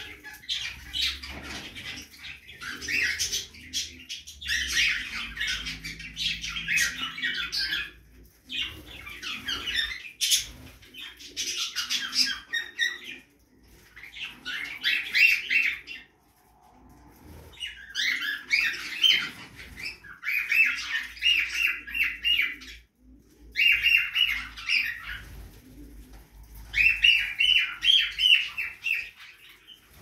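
A flock of budgerigars chattering and warbling, dense runs of fast, high chirps coming in bouts of a few seconds with short pauses between.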